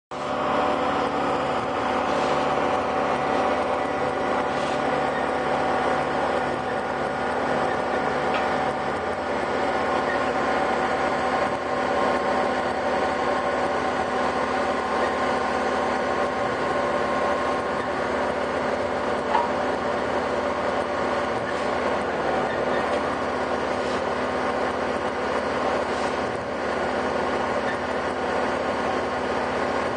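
Heavy construction machinery for horizontal auger boring running steadily: an even engine-and-hydraulics drone with several steady whining tones. A single short knock comes about two-thirds of the way through.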